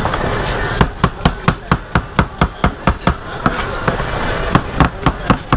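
Large kitchen knife chopping apple on a plastic cutting board: rapid, even knocks about four or five a second, starting about a second in, with a short break past the middle before the chopping resumes.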